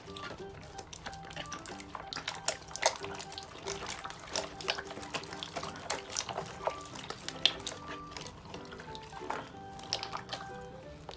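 Slime mixed with wax and chocolate bits squelching under kneading hands: many small wet pops and clicks as it is squeezed and pressed, with soft background music.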